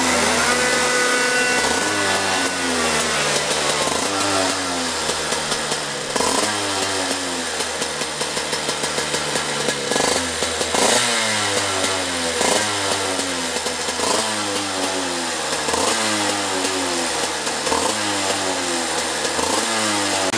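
Two-stroke kart engine running on its stand, the throttle blipped over and over so the revs rise and fall about once a second.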